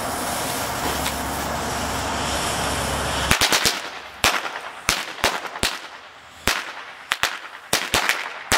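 A pack of small firecrackers going off while still in their package, a string of about a dozen sharp bangs at irregular gaps, some in quick runs, starting about three seconds in after a steady hiss.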